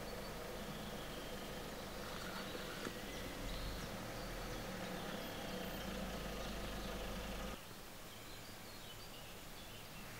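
Faint outdoor ambience: a steady low hum with a few faint, high bird chirps scattered through it. The hum drops away abruptly about seven and a half seconds in.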